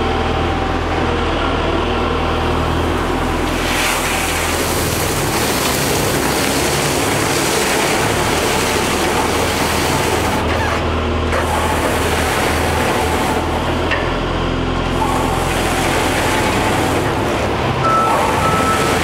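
DSSH-LTI-30 double-shaft shredder running with a steady low machine hum. From about four seconds in a dense, noisy rush of iron chips joins the hum as they pour into the hopper and are ground by the shafts.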